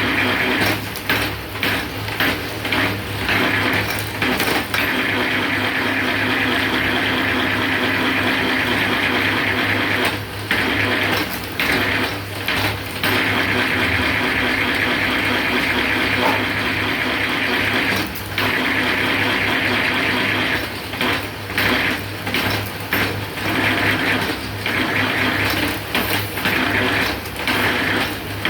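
Motor-driven bamboo satay-skewer rounding machine running with a steady hum while bamboo strips are shaved through its blade. The noise drops briefly now and then.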